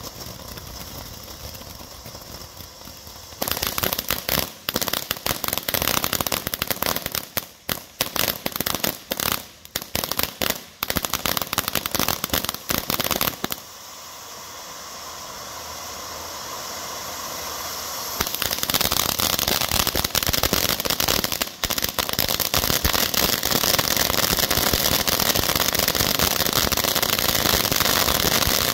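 A to Z consumer fountain firework spraying sparks with a steady hiss. About three seconds in it breaks into loud, rapid crackling for about ten seconds. Then comes a hiss that swells for a few seconds, and then dense, loud crackling to the end.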